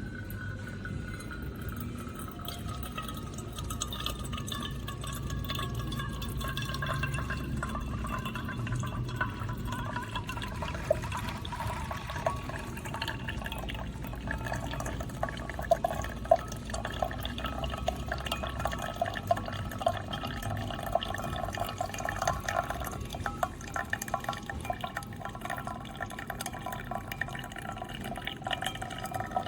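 Single-serve coffee maker dispensing a stream of coffee into a cup, with many small irregular drips and a faint tone that slides lower and then holds.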